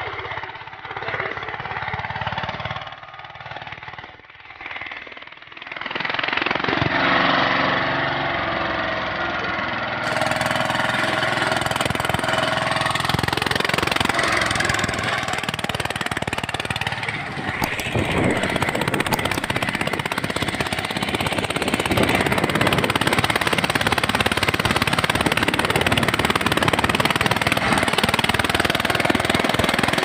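Small diesel engine of a homemade power weeder running under load as it drags cultivator tines through dry soil, with a rapid, steady knocking beat. It is quieter and uneven for the first few seconds, then loud and steady from about six seconds in.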